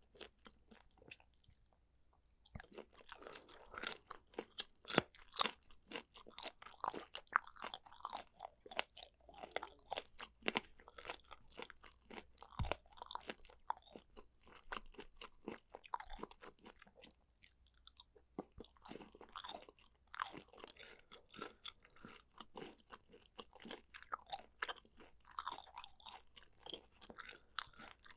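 Close-miked chewing of boneless chicken feet and pork skin: a near-continuous run of crisp crunches and clicks, with short pauses about two seconds in and again around seventeen seconds.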